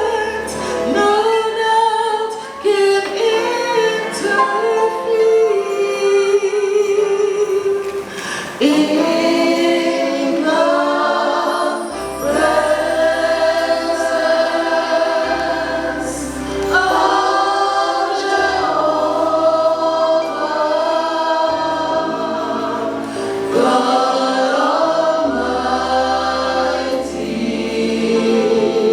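A choir singing a hymn in sustained held notes, with a low instrumental bass joining about twelve seconds in.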